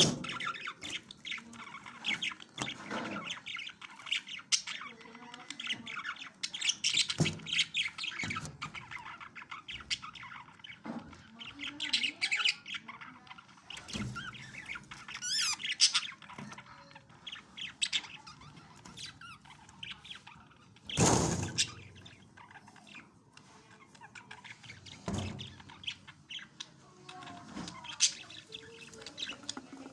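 Baby budgerigar chicks squawking and chirping in quick, irregular calls, with one louder burst about two-thirds of the way through.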